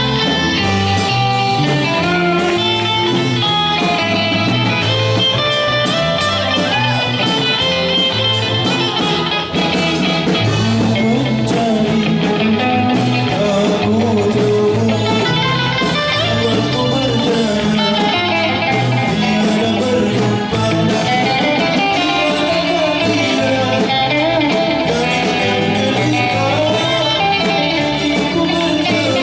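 Live band playing through a PA: electric guitars with a man singing into a microphone, continuous for the whole stretch.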